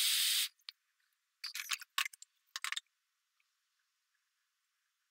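A Thermomix blender chopping dried ground beef, a steady whirring that cuts off suddenly about half a second in. A quick run of clicks and rattles follows a second later.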